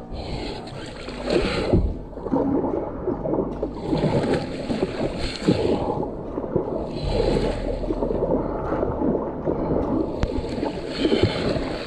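Kayak being paddled hard. The paddle blades dig and pull through the water, and water splashes and rushes along the hull. The sound swells with each stroke, about every three seconds.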